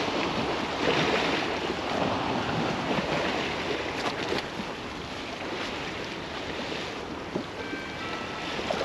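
Steady noise of wind and estuary water lapping at a very high tide, with wind buffeting the microphone. A few faint clicks come about four seconds in.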